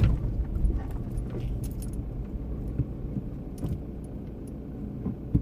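A vehicle running, a steady low rumble, with light clicks and rattles now and then.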